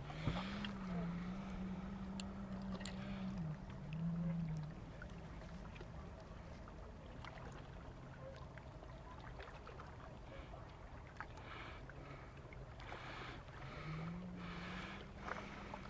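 A small motor's steady hum that rises in pitch, holds, drops back, and rises again near the end, with scattered light clicks.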